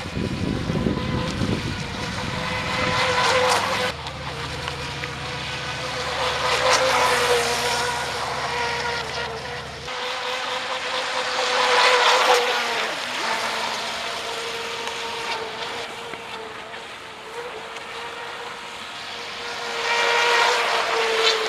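Pro Boat Stealthwake RC boat's electric motor whining as the boat runs across the water, swelling louder several times as it passes, with water rush mixed in. The sound changes abruptly twice, like cuts between runs.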